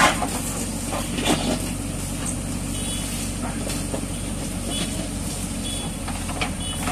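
JCB 3DX backhoe loader's diesel engine running steadily under hydraulic load as the backhoe arm drags its bucket through sand, with a few sharp knocks near the start.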